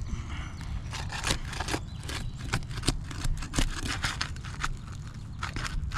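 Flat bar prying under an asphalt shingle, breaking its sealant strip: a run of irregular small cracks and scrapes as the bond lets go.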